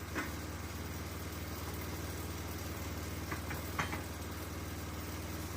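Sawmill engine idling steadily, with a few short knocks: one just after the start and a small cluster a little past the middle.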